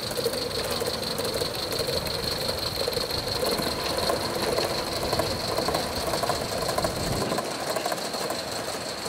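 Coal-fired Gauge 1 live-steam model locomotive running with its coaches, giving a rapid, steady clatter of exhaust beats and wheels on the rail joints, with a steady high tone over it.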